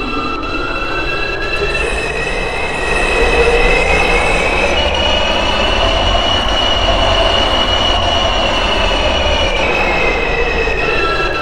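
Subway train running between stations: the electric traction motors whine in several tones that rise in pitch over the first few seconds as the train picks up speed, hold steady, then fall again near the end, over a steady rumble of wheels on the track.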